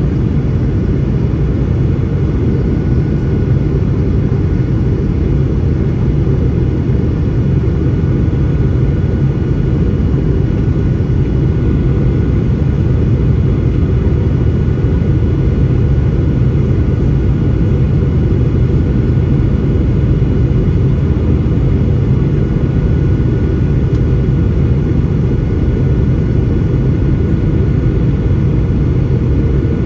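Steady cabin noise of a Boeing 737-800 descending on approach, heard from a seat over the wing: a deep rumble of airflow and its CFM56 engines, with a faint high tone held steady above it.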